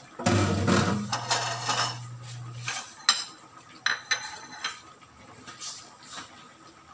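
Dishes and metal utensils clattering in a kitchen: a loud rush of noise with a low hum for the first two and a half seconds, then several sharp metallic clinks that ring briefly.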